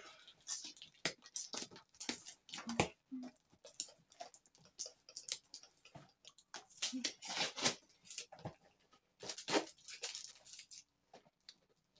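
Cardboard box and its packaging being opened by hand, fingers picking and tearing at the sealed top: an irregular run of crinkling, scratching and small tearing sounds.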